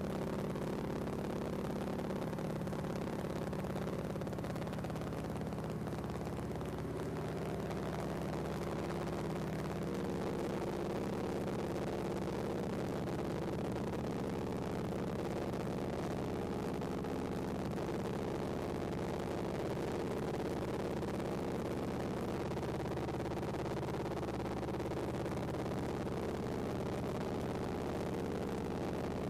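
Floatplane's propeller engine running steadily at flight power, heard from inside the cabin while it climbs away from the lake.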